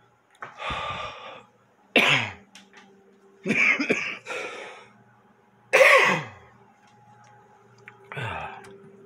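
A man coughing hard five times in a few seconds, harsh hacking coughs with a throat-clearing sound, the loudest near two and six seconds in.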